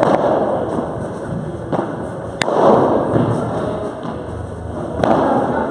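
Padel rally: a ball struck by rackets and bouncing off the court walls and floor, about four sharp hits a second or more apart, each ringing on in a large echoing hall.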